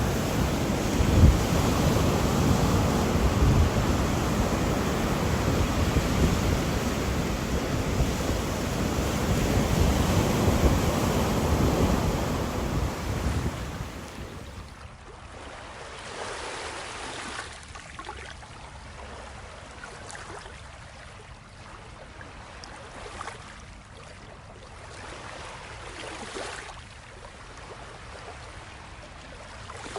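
Ocean surf with strong wind buffeting the microphone, a steady noisy roar. About fourteen seconds in it cuts to a much quieter scene of soft, irregular washes of water.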